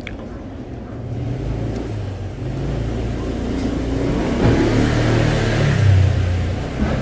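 A motor vehicle's engine running, with a steady low hum that swells louder through the middle and drops back near the end.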